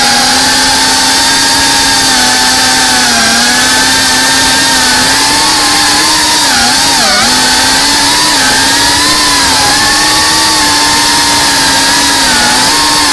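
FPV quadcopter's brushless motors and propellers whining loudly in fast flight. The pitch wavers with the throttle and dips and rises sharply about seven seconds in.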